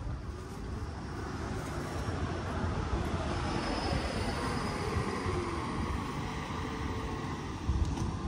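A large vehicle passing on the street, its rumble growing louder over the first few seconds and then holding, with a short sharp knock near the end.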